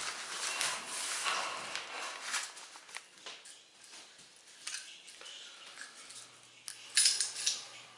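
Rustling of a nylon rod sleeve as a heavy boat fishing rod is pulled out of it for about the first three seconds. Then come scattered light clicks, and a short run of sharp metallic clinks from the rod's metal fittings about seven seconds in.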